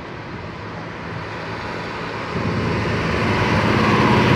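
Diesel farm tractor driving along a road towards the listener and passing close by. Its engine note grows steadily louder, and a higher whine comes in as it draws level near the end.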